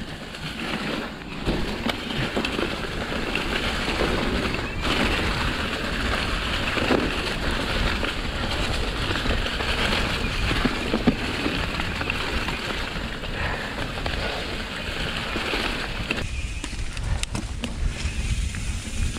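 Mountain bike rolling down a leaf-covered dirt trail: tyres running through leaves, with rattling and wind buffeting the microphone. Near the end the leaf noise fades, leaving mostly low wind rumble.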